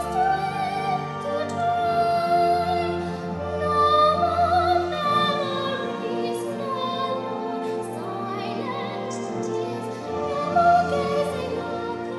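A young girl sings a slow musical-theatre ballad solo in a classical style with vibrato, holding long notes over a sustained accompaniment.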